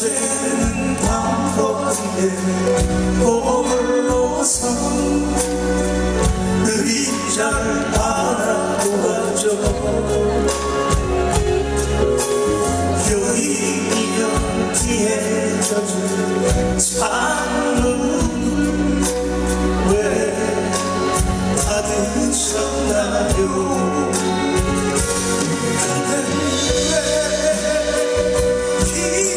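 Live band music: strummed acoustic guitars with bass and electric guitar, and male voices singing.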